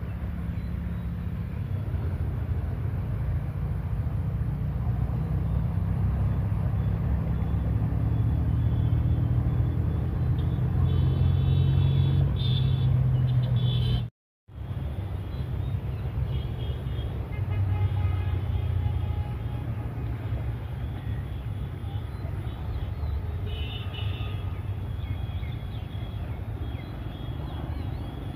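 Steady low outdoor rumble beside a swollen, fast-flowing flooded river: wind on the microphone mixed with rushing water, with faint high tones now and then and a brief silent gap partway through.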